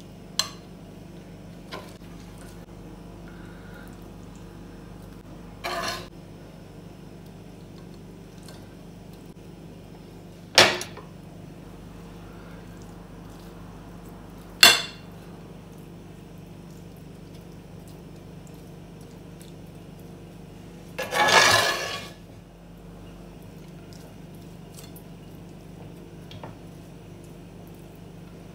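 Kitchenware clinking: a few sharp, widely spaced knocks of utensils against dishes and pans, and a longer clatter of about a second about three quarters of the way through, over a steady low hum.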